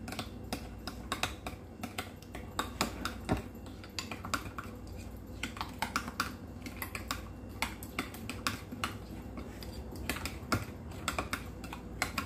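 A spoon clicking and scraping against a bowl while stirring a thick mayonnaise marinade: a quick, irregular run of light clicks, several a second.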